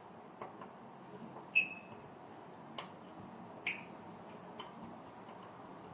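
A few light clicks and taps of wire and tool against a circuit breaker's terminals and the metal panel box as a red wire is fitted in. The sharpest, about a second and a half in, has a brief metallic ring; the others are fainter and spaced about a second apart.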